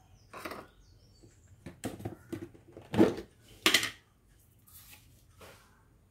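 A few brief, separate knocks and rustles of kitchen things being handled, the loudest about three seconds in.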